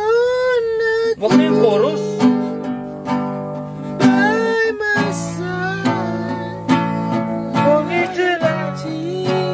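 Nylon-string classical guitar strummed in repeated chords, with a voice singing along.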